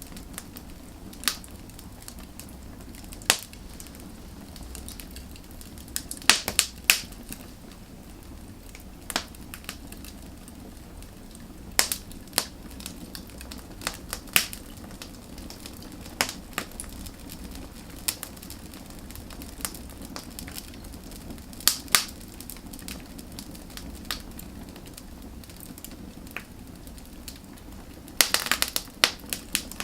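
Burning firewood crackling and popping over a steady low hiss of flame, with sharp pops at irregular intervals and a quick flurry of crackles near the end.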